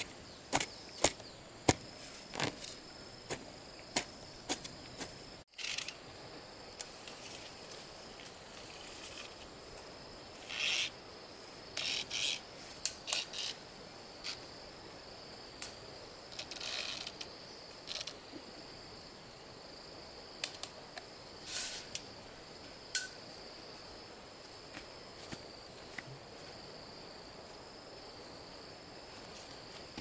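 Hoe blade striking and scraping into soil in regular strokes, a little faster than one a second, for the first five seconds or so. After that come scattered rustles and taps. A steady high insect buzz runs underneath throughout.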